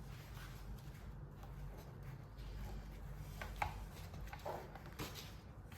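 Faint handling clicks and scrapes, a few in the second half, as a plastic extension board's plug and switch are worked to power it on, over a low steady hum.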